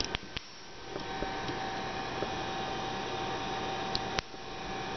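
A jumper-cable clamp is snapped onto a 250 amp fuse with a couple of sharp clicks right at the start, dead-shorting a car battery through the fuse. Another sharp click comes about four seconds in, over a steady hum and hiss.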